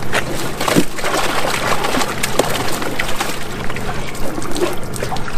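Water sloshing and splashing in a plastic tub as live largemouth bass are moved from a bag into it and handled in the water.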